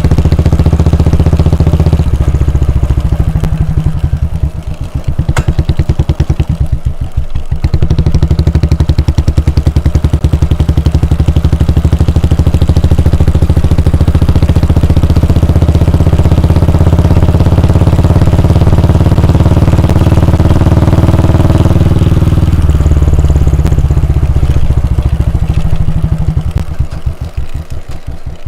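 Royal Enfield Bullet 350's air-cooled 349 cc single-cylinder engine running, its exhaust giving slow, evenly spaced thumps at low revs early on and again near the end, and running steadier and louder under throttle in between.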